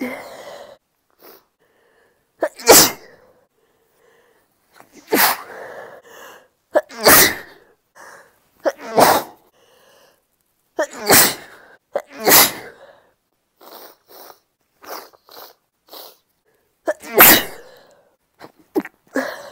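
A woman sneezing over and over, induced sneezes, some of them stifled: about seven full sneezes a couple of seconds apart, with shorter, sharper bursts and breaths between them.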